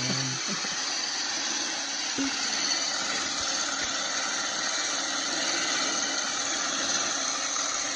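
Electric mixer running steadily, whipping salted egg whites into foam that is nearly stiff.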